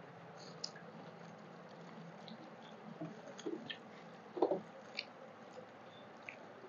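Soft wet squishing and small mouth clicks of rice mixed with dal being squeezed by hand and chewed, with a slightly louder smack about four and a half seconds in.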